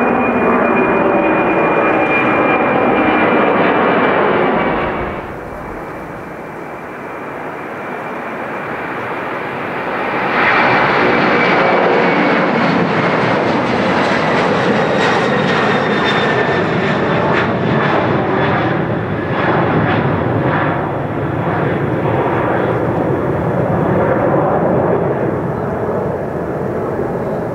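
Jet airliner engines at takeoff power: first a Boeing 747's four engines, a steady roar with a high whine slowly falling in pitch. About five seconds in it cuts to quieter jet noise, and about ten seconds in a Boeing 767's twin engines come in loud, the roar carrying a whine that slowly drops in pitch, with crackling later on.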